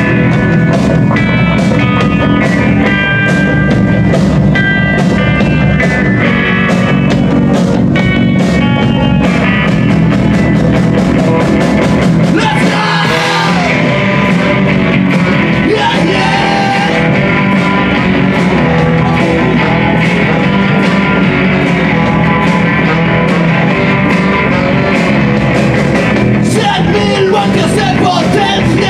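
Punkabilly band playing live: distorted electric guitar, bass and drums driving a fast steady beat, with a lead melody line over the top for the first nine seconds or so. The band briefly thins out about thirteen seconds in, then carries on at full tilt.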